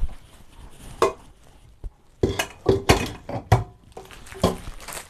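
Kitchen dishes and utensils knocking and clinking: about six sharp strikes, most of them bunched in the middle, a few with a short ring.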